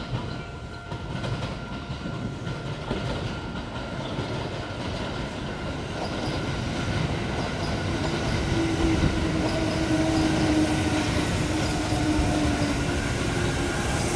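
A train approaching and growing steadily louder, its wheels running on the rails, with a steady whine coming in about eight seconds in.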